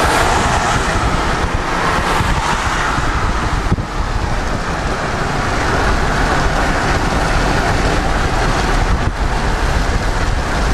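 Loud, steady rush of wind and road noise from a car driving at highway speed, with wind buffeting the microphone; the noise dips briefly about four seconds in.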